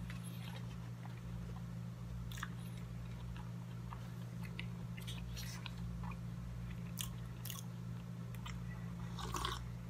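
A person chewing a mouthful of burrito, with scattered soft wet clicks and smacks of the mouth over a steady low hum. Near the end comes a sip of beer from a plastic cup.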